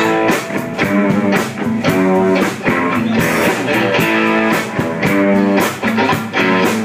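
Live blues band playing an instrumental guitar fill between sung lines, with drums keeping a steady beat.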